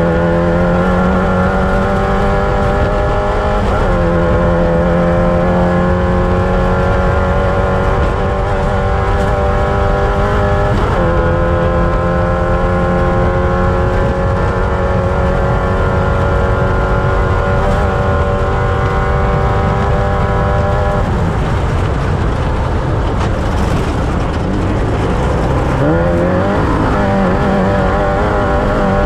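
Off-road race vehicle's engine pulling hard at high revs, its pitch dropping and climbing again at gear changes about 4 and 11 seconds in, then holding steady. About 21 seconds in the note breaks up as it lets off, and it climbs again near the end, over a constant rush of noise.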